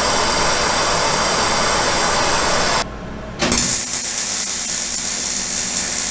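Handheld gas torch burning with a steady hiss as it preheats the steel axle truss, cutting off about three seconds in. Half a second later a MIG welder runs a bead, a steady hissing noise brighter in the highs.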